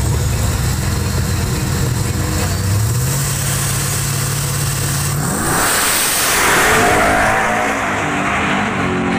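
Pickup truck engine held at raised revs on the drag strip start line, then a sharp rise in revs about five seconds in as the truck launches hard at full throttle, loudest about two seconds later; the engine note then climbs again as it pulls away down the strip.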